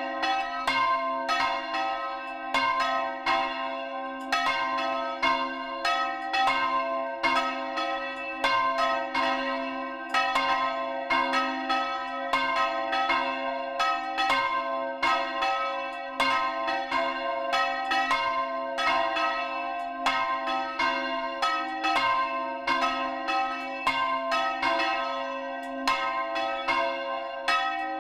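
Church bell swung by hand through full turns on its yoke, its clapper striking about twice a second, each stroke ringing on into the next, heard up close inside the belfry.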